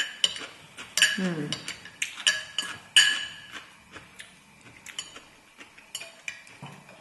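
Chopsticks and a fork clinking against glass dishes: a series of sharp clinks, each with a brief ring, loudest in the first three seconds and fainter after. A short voice sound comes about a second in.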